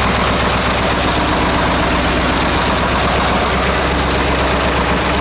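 1948 Buda 8-DC-1125 straight-eight diesel engine, 1125 cubic inches, running steadily with a fast, even beat of firing pulses.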